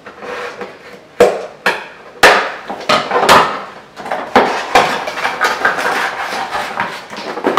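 A string of irregular sharp knocks and clatters of hard objects being handled and put down, about a dozen over several seconds.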